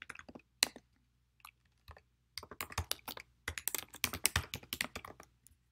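Typing on a computer keyboard: a few scattered keystrokes, then a quick run of keys from about two and a half seconds in as an email address is entered.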